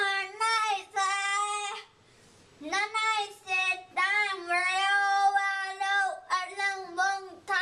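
A child singing without accompaniment: sung phrases on held, fairly high notes, with a short break about two seconds in.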